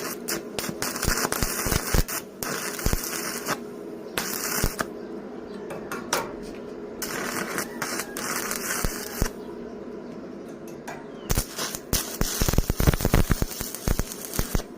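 Stick welding arc crackling and sputtering in several runs of a few seconds each, broken by short pauses, with sharp clicks and taps throughout.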